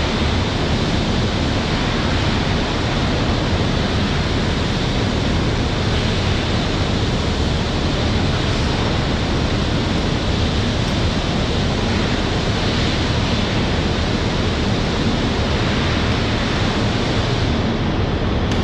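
Steady, loud rushing noise of a truck-wash bay, with a low hum underneath.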